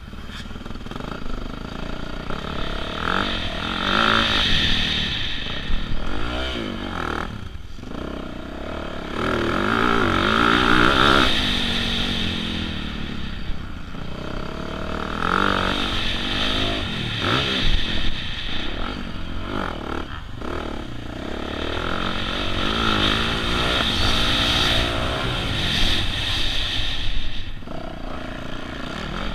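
Motocross dirt bike engine revving hard and falling back as it is ridden around the track. The revs climb in long pulls and drop off briefly every six or seven seconds.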